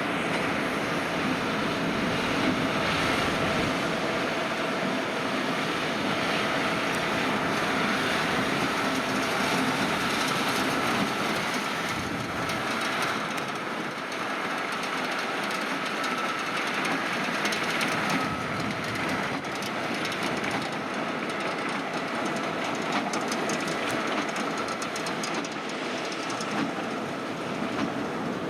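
Tractor working with trailed haymaking machinery: the engine runs steadily under load over a continuous mechanical clatter from the implement.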